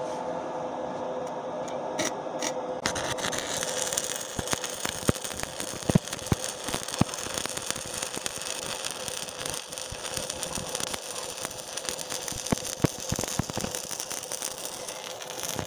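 Stick-welding arc from a Wert Mini 200 inverter welder, crackling and sputtering steadily as a whole electrode burns down. The arc takes hold about three seconds in, after a couple of brief crackles, and breaks off near the end.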